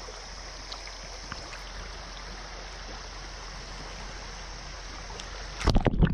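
Steady rushing of a shallow, rocky creek's flowing water. Near the end the camera is plunged underwater, and the sound turns suddenly louder and muffled, with sloshing and knocking of water against the microphone.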